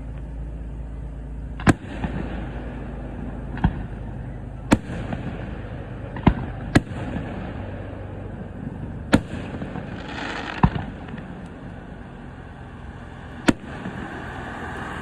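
Fireworks display: about eight sharp bangs from aerial shells going off at irregular intervals, over a steady low background noise.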